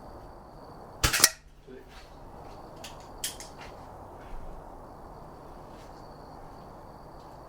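A single shot from a silenced Reximex Mito .177 regulated PCP air pistol: one sharp report about a second in, followed over the next few seconds by a few faint metallic clicks.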